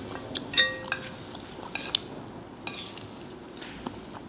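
Metal fork clinking and scraping against a cut-glass bowl while scooping up noodles: several sharp, ringing clinks, the loudest about half a second in.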